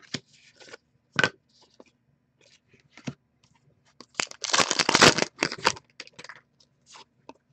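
Trading cards being handled at a table: small clicks and rustles, with a louder rustling burst about four seconds in that lasts about a second and a half.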